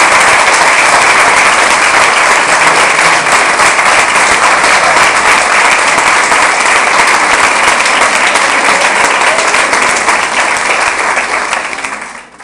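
Sustained applause from a room of people clapping, dense and steady, fading out near the end.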